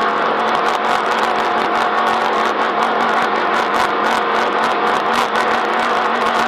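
Off-road race vehicle driving at speed, its engine running steadily with a constant hum, over a dense rumble of terrain noise and frequent short rattles and knocks.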